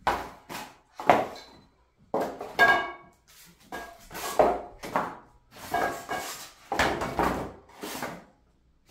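Irregular knocking and clattering as the rack's powder-coated steel tubes and its cardboard packaging are handled. There are a dozen or so separate knocks, some with a brief metallic ring.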